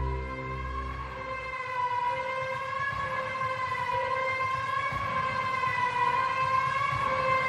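A single sustained siren-like tone in the background music, held with a slow waver. The music's bass drops out about a second and a half in, leaving the tone on its own.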